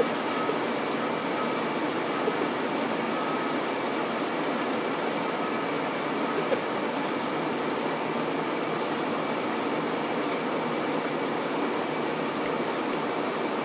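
Steady whooshing background noise like a fan or air-conditioning unit running, with a faint steady tone that comes and goes.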